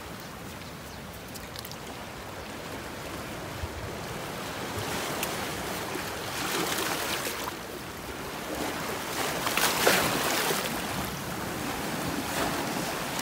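Ocean surf washing onto the beach, a steady rush that swells louder twice, about halfway through and again near the end.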